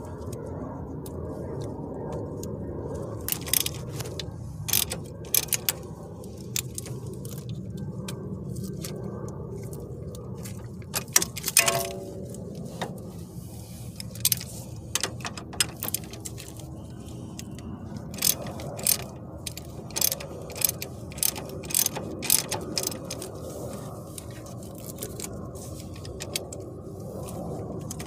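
A ratchet wrench clicking in short runs of strokes as it works the 18 mm nut off a sway bar link, over a steady low hum. A sharp metal clink that rings briefly, the loudest sound, comes about halfway through.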